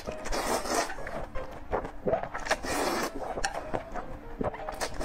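Spicy noodles in chili sauce being slurped up from a bowl: two long, noisy slurps, one about half a second in and one near three seconds in, with short wet clicks and smacks of eating between them.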